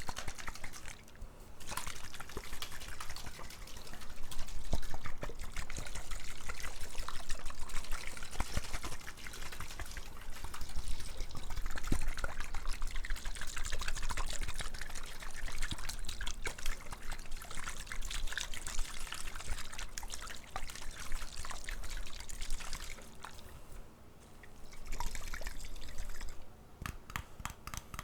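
Water pouring and trickling unevenly, full of small splashes and clicks. The flow drops off briefly twice, and near the end turns into a quick run of drips.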